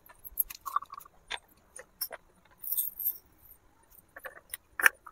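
Glass bangles clinking and small clay pots tapping as hands handle miniature clay pots, in scattered light clicks. A brief hiss about halfway through as grains are poured into a pot.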